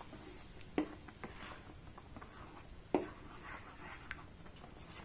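A spatula stirring thin tomato sauce in a pan: faint stirring and scraping, with light knocks of the spatula against the pan about a second in and again near three seconds.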